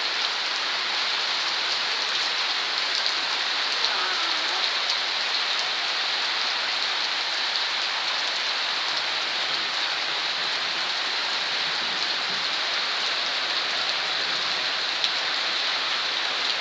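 Steady rain falling, a continuous even hiss of drops striking surfaces.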